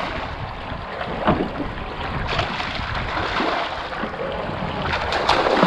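Juvenile black marlin thrashing and splashing at the surface beside the boat, a few irregular splashes over a steady rush of water and wind.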